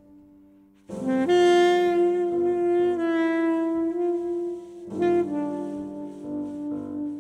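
Soprano saxophone playing long held notes in a live jazz setting. It comes in loud about a second in after a brief hush, and a new phrase starts about five seconds in.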